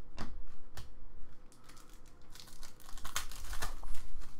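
Plastic wrapper of a pack of baseball cards crinkling and tearing as it is opened, loudest in the second half, after a few short clicks of cards being handled near the start.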